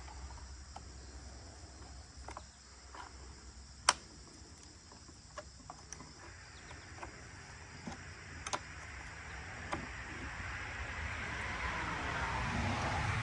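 Scattered sharp clicks and taps of a wrench tightening the side cover nuts on a chainsaw, the loudest about four seconds in, over a steady chirring of crickets. A rushing noise swells louder through the second half.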